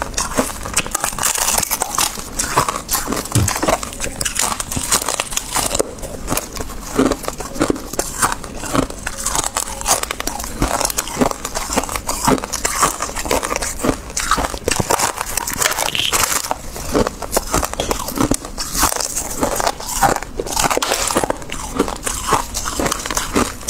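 Freezer frost being bitten and chewed close to the microphone, with a continuous run of crisp, irregular crunches.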